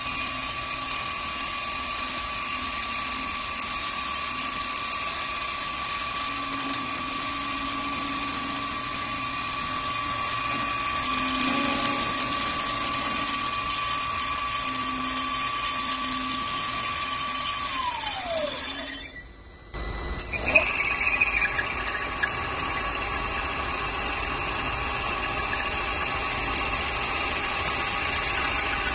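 Electric spindle motor of a CNC woodworking lathe running with a steady whine, which falls in pitch as it winds down about two-thirds through. After a moment's lull the machine starts up again with a louder, rougher running sound.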